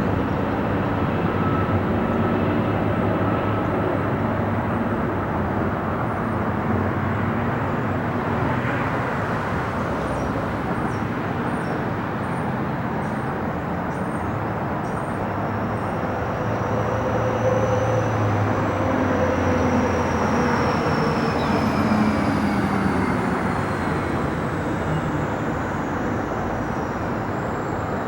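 Jet engines of a Boeing 767 freighter passing overhead: a steady rumble, with a faint whine that slowly falls in pitch in the second half.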